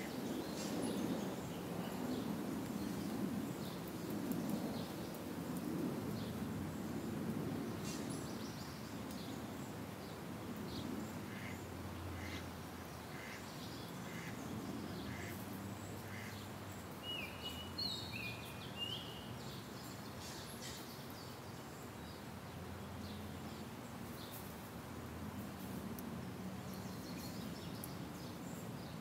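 A low, steady background rumble, louder in the first several seconds, with faint scattered bird calls and a short run of high chirps about two-thirds of the way through.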